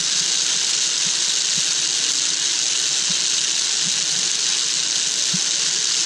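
Steady, even rushing hiss while a sky cycle is pedalled along its high overhead cable, with a few faint soft knocks.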